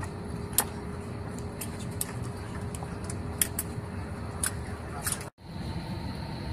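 Cabin noise of an Airbus A320-family airliner taxiing after landing: a steady low rumble with scattered sharp clicks. The sound cuts out for a split second about five seconds in, then returns with a faint steady whine.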